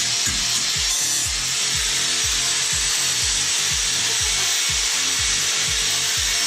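Music with a fast, steady deep bass beat laid over the continuous hiss of a power tool cutting.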